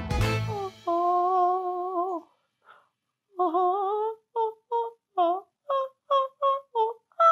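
Background music fades out in the first second. Then a man sings a held note, and after a short pause a gliding note followed by a quick run of about nine short sung notes.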